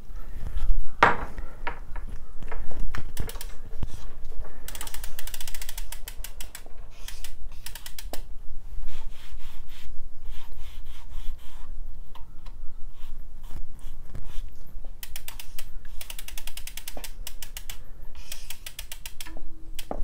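Bicycle rear freehub pawls clicking rapidly as the rear wheel is spun by hand and coasts, in several spells of fast ticking. A single sharp knock comes about a second in.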